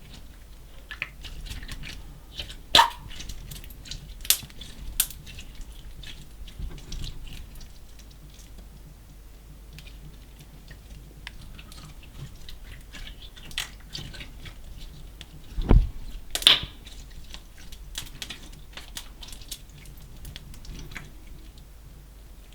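Slime mixed with small coloured particles being squished and kneaded by hand: irregular sticky crackling and clicking, with a few louder sharp pops about three, four to five, and sixteen seconds in.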